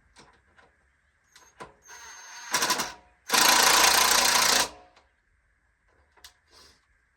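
Cordless drill driving screws into the plastic-lumber rocking chair: a shorter, uneven run about two seconds in, then a loud steady run of about a second and a half. Light clicks of parts and tool being handled before and after.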